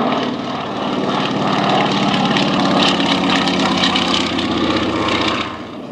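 Radial-engined biplane flying past low, its engine and propeller running with a fast, even pulsing beat. It is loudest around the middle of the pass and drops away sharply near the end.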